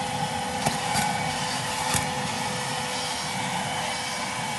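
Philips FC6142 handheld wet-and-dry vacuum cleaner running steadily, its small motor giving an even whine while sucking up dry debris, with a few sharp ticks about one and two seconds in.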